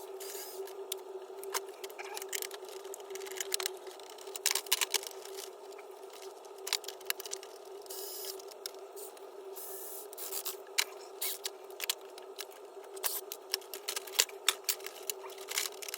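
Plastic and metal parts of an electric typewriter being pried at and pulled apart by hand: irregular clicks, knocks and scrapes, a few louder snaps about four to five seconds in and near the end, over a steady hum.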